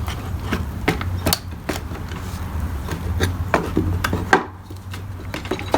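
Irregular clicks, knocks and rubbing of plastic and metal parts as a Ryobi string trimmer's engine end is worked loose and pulled apart from its shaft.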